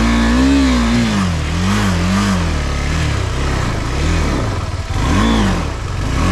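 Motorcycle engine revving up and down over and over, its pitch rising and falling several times as the rider works the throttle on a rough off-road climb.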